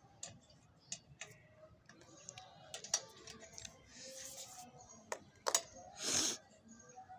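Scattered light clicks and taps of a screwdriver against a child's bicycle's metal parts, irregular and unhurried, with two brief rushes of scraping noise about four and six seconds in.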